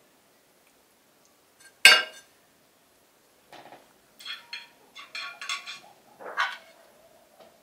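Metal cookware clinking: one sharp clink of a spoon against a pan about two seconds in, then a string of ringing metallic clinks and knocks as stuffed vegetables are packed into a stainless steel pot.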